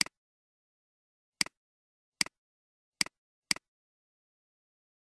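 Computer mouse clicking five times at uneven intervals. Each click is a sharp snap followed at once by a quieter release click, with silence in between.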